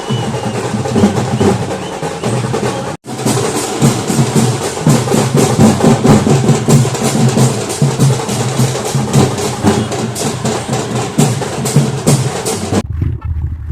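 Drums beaten in a fast, unbroken rhythm. There is a brief break about three seconds in. Near the end the drumming cuts off, leaving a low rumble.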